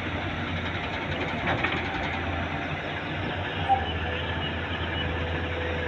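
Volvo EC210B excavator running steadily, a continuous low engine drone with a few short knocks, the sharpest near the middle. A steady whine comes in at about four and a half seconds.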